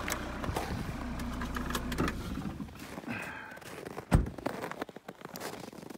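A vehicle engine idling, then switched off about two seconds in, leaving small clicks and handling noises. A single loud thump comes a little past four seconds.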